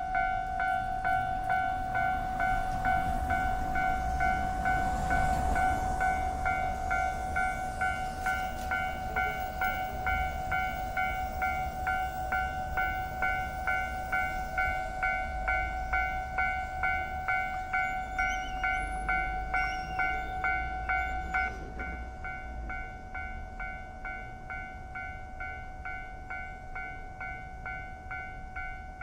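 Japanese railroad crossing warning bell ringing in an even, rapid clang, a little over two strikes a second, while a train rumbles past. About two-thirds of the way through the rumble and part of the bell tone drop away, and the bell keeps ringing more quietly.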